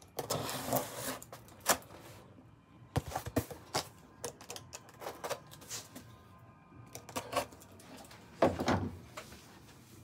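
Cardboard speaker packaging being handled: scattered rustles, light knocks and scrapes, with the loudest scrape near the end.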